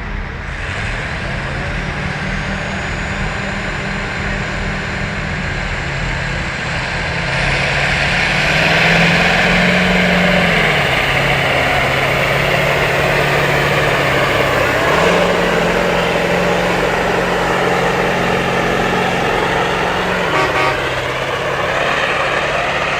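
Tractor engine working hard under load, pulling a weighted sled. Its pitch steps up twice, at about 8 and 15 seconds in, and drops back each time.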